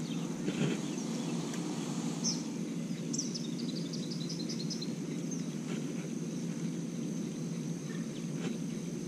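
Outdoor ambience: a steady high insect drone over a steady low hum, with a bird giving a quick run of about eight short chirps around three to four seconds in and a few single chirps elsewhere.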